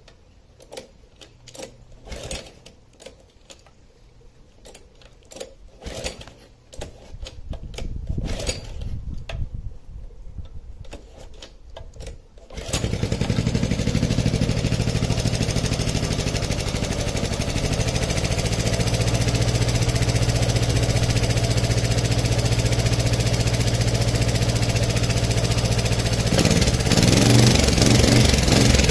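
Small four-stroke engine converted to run on pure hydrogen gas being pull-started: a series of clicks and short cranking tugs. It catches about thirteen seconds in and runs steadily on hydrogen, then revs higher, its note wavering, near the end.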